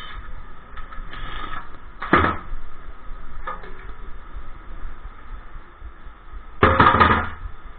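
Clanks and knocks of tools and transmission parts being handled during a 46RE teardown: one sharp knock about two seconds in and a louder cluster of knocks near the end, over steady shop background noise.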